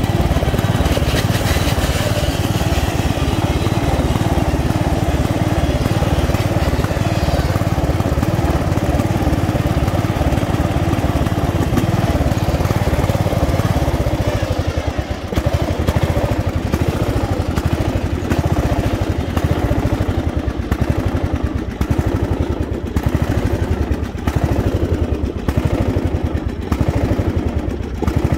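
Racing lawnmower's engine running steadily at speed, then dropping to a lower, pulsing idle about halfway through as the mower slows and stops.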